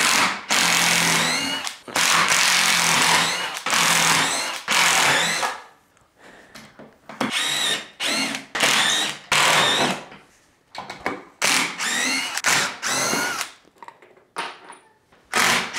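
Cordless driver sinking screws into a plywood table top in repeated bursts, its whine rising in pitch as each burst spins up. The first few runs last one to two seconds each; after that the bursts come shorter and quicker.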